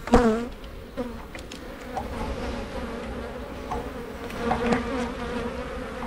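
Honey bees from an open hive buzzing in a steady hum, with a sharp louder swell just after the start and smaller swells a little later.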